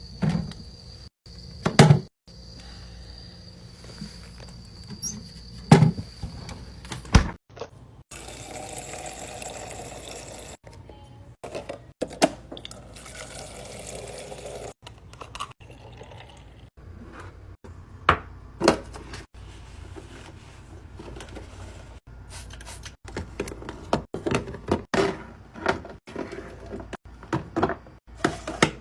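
Drink containers and packages being handled and set down, with repeated knocks, clinks and thuds, and liquid poured into a container for a few seconds twice around the middle.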